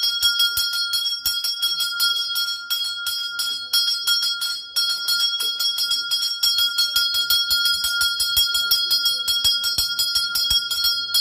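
Brass puja bell rung rapidly and continuously, about six or seven strokes a second, holding one bright ringing note throughout.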